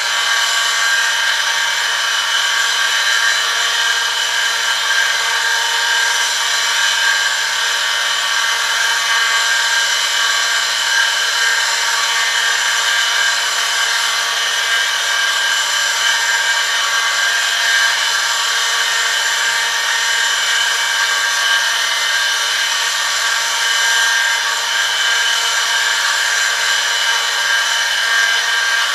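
Electric motor of an oil friction-test rig running steadily while a steel sample, loaded by a 1 kg weight on a lever, rubs metal on metal against the oiled rotating part. It makes a constant whine of many steady tones over a grinding hiss.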